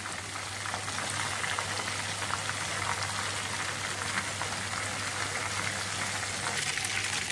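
Flour-coated chicken pieces deep-frying in hot oil, the first stage of a double fry: a steady sizzle with dense fine crackling.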